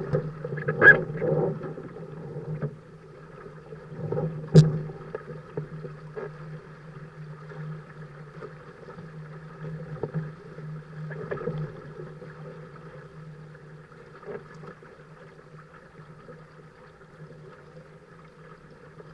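Small sailing catamaran under way: a steady rush and hum of wind and water. Several sharp knocks or splashes come in the first five seconds, the loudest about four and a half seconds in, and then it settles to the steady sound alone.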